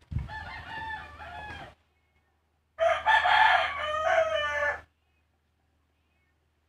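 A rooster crowing twice: a shorter crow, then a louder, longer one about two seconds long.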